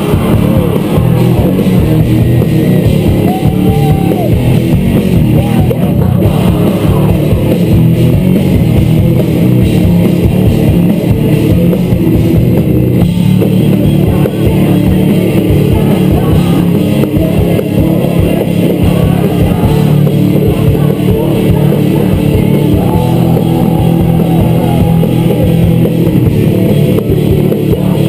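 Live rock band playing loud: distorted electric guitars and drum kit, heard from close to the stage.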